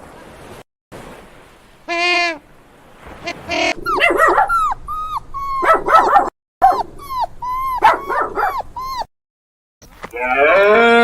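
A dog, likely a puppy, yipping and whimpering in a run of quick, high, arching cries through the middle, cut between short clips. It is preceded by two brief pitched animal calls and followed near the end by a loud, longer animal call.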